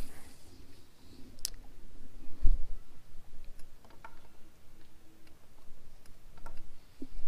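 Clicks and knocks of a spinning rod and reel being handled through a cast: a sharp click about one and a half seconds in, a dull thump a second later, then a few faint ticks.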